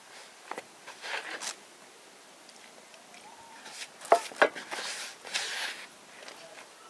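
Hands working in a plastic mixing bowl: soft rustling and scraping, with two sharp clicks about four seconds in, the loudest sounds.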